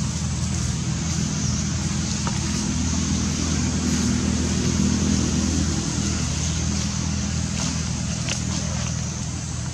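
A motor vehicle's engine running steadily nearby, a low hum that swells a little in the middle and eases off towards the end.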